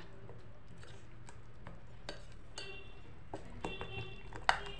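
Thick pakora batter being mixed by hand in a glass bowl: quiet stirring with scattered light clicks against the glass, a few sharper ones near the end. A faint ringing tone comes in about three and a half seconds in.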